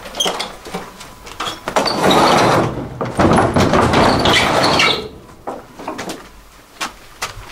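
A heavy door scraping and rolling open over about three seconds, then a few scattered knocks and footsteps on a wooden floor.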